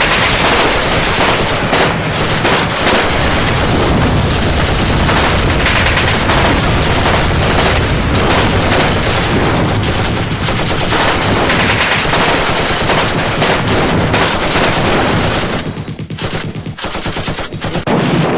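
Dense, continuous rapid gunfire, many overlapping bursts at once. It eases off about 15 seconds in and swells again near the end.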